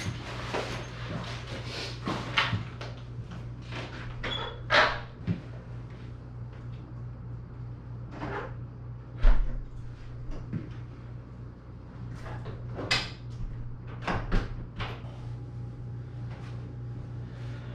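Scattered knocks, clicks and clatters of household things being handled, like cupboard doors and dishes, with one heavier thump about nine seconds in, over a steady low hum.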